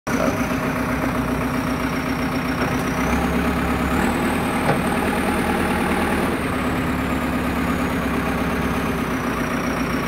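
2006 JCB 3CX Sitemaster backhoe loader's diesel engine running steadily. About three seconds in it picks up briefly, with a faint high whine rising, then settles back a little after six seconds.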